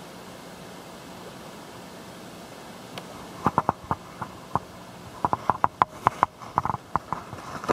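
Steady low hiss, then from about three and a half seconds a run of sharp, irregular clicks and taps, typical of a camera being handled and moved in close.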